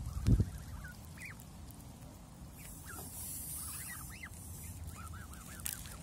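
Canada goose goslings peeping: short, high, arched cheeps scattered through, with a quick run of them near the end. A low thump right at the start.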